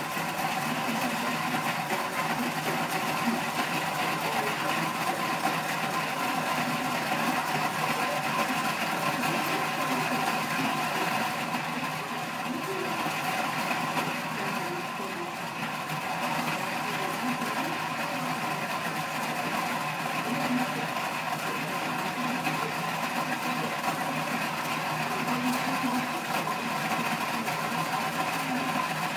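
Swivel bar stool's seat bearing turning continuously as a dog walks on it, a steady mechanical whirring, with people talking in the background.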